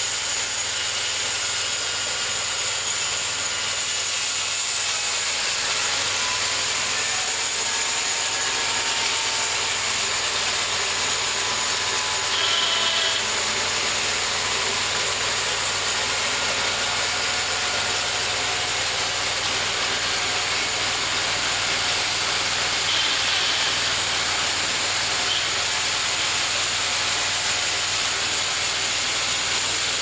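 Homemade bandsaw mill running steadily as its blade saws through a cherry log: a constant hiss of cutting over a steady low hum.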